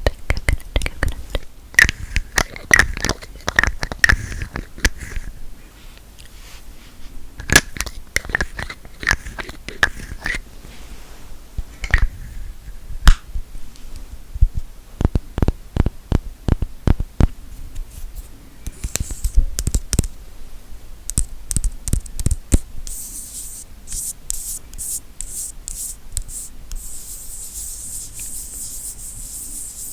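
Close-miked ASMR tapping and clicking on small objects, some taps ringing briefly, then from about two-thirds of the way in a steady, high scratching sound.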